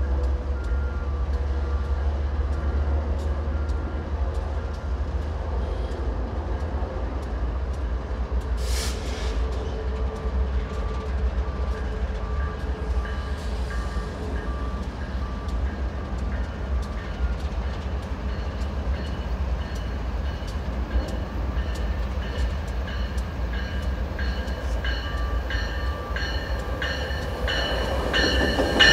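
Metrolink commuter train with an F59PHI diesel locomotive approaching and arriving at a station platform: a low rumble throughout, with evenly repeated bell strikes growing louder in the last few seconds as it comes alongside. An alternating two-tone chime sounds through most of it.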